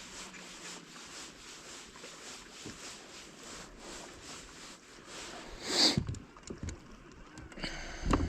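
Fishing reel being cranked through a crankbait retrieve, with a steady soft whirring. About six seconds in comes a loud sudden swish, another sharp one just before the end, and a steady low boat-motor hum starts near the end.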